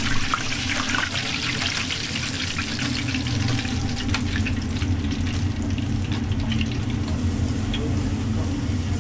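Skewered chicken wings deep-frying in a large pot of very hot oil: a steady crackling sizzle over a low, even hum.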